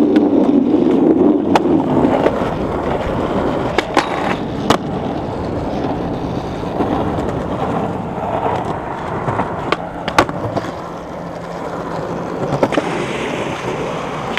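Skateboard wheels rolling steadily over concrete pavement, with several sharp clacks spread through the ride.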